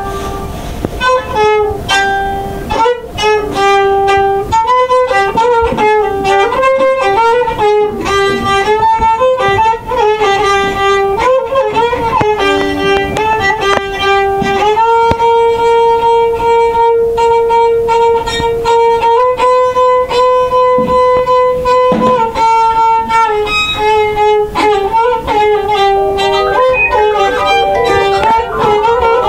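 Violin played with the bow: a melody of quick changing notes, moving into long held notes from about halfway through for several seconds, then quick notes again near the end.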